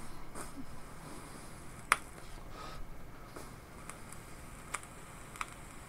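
A long draw on a draw-activated iQ OVS pod vape held at the lips: faint airflow as he inhales, with a few small clicks, the sharpest about two seconds in.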